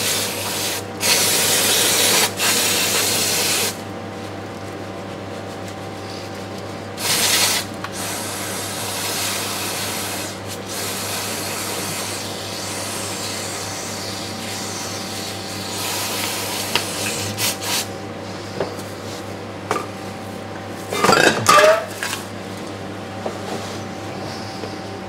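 Aerosol cleaner sprayed onto the oil-soaked transmission case of a Toyota Land Cruiser 40 to wash off leaked transmission oil: a long hiss of about four seconds, then a shorter burst a few seconds later. Softer scrubbing follows, and a brief loud rustle and clatter comes about 21 seconds in.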